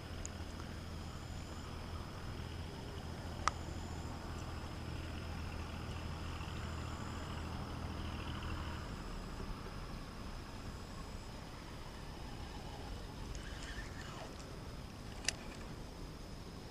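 Low, steady hum of a distant engine that stops about halfway through. Two sharp clicks fall over it, a few seconds in and again near the end.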